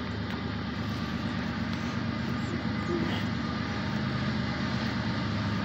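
Diesel locomotives of an approaching loaded coal train, led by a GE ES44DC and an EMD SD70ACE: a steady low engine drone that grows slowly louder.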